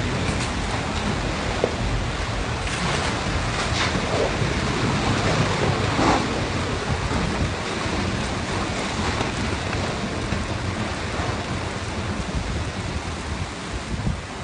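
Storm wind and rain: a steady, heavy rush of noise with wind buffeting the microphone and a few brief louder gusts.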